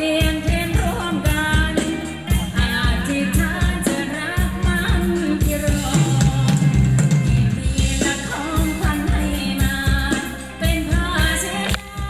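Thai ramwong dance music from a live band: a singer over a drum kit keeping a steady beat.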